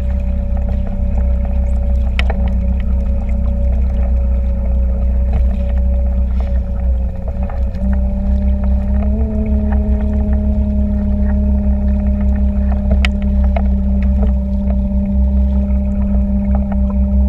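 A small boat's motor runs steadily while towing a paddleboard, with a deep rumble underneath. Its pitch steps up a little about eight seconds in and again about a second later, as the boat speeds up slightly.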